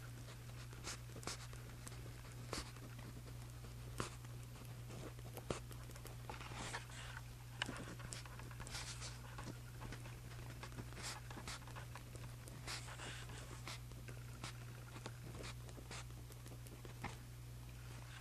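Pen writing on journal paper: irregular short scratching strokes and small taps, with a steady low hum underneath.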